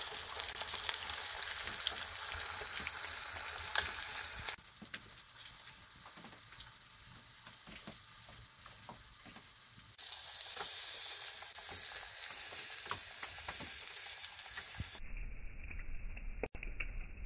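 Food sizzling and crackling in a hot frying pan, in several edited stretches: quieter for a few seconds in the middle, and duller near the end.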